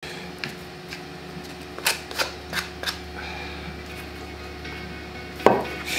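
A small wooden block and a sheet of sandpaper handled on a wooden workbench: a few short scrapes and taps, then one sharp knock of wood on the bench about five and a half seconds in, over a steady low hum.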